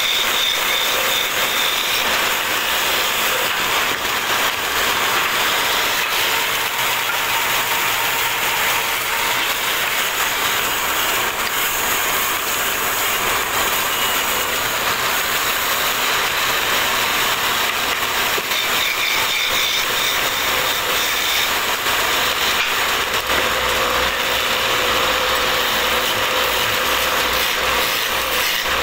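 Wood lathe turning a wooden rolling pin while a hand chisel cuts into the spinning wood, making a steady, dense rapid chatter of tool on wood.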